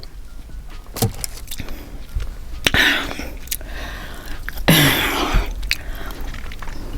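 Close-miked eating sounds: scattered small clicks and mouth noises, with two louder breathy bursts about three and five seconds in, like a throat clearing or a heavy exhale.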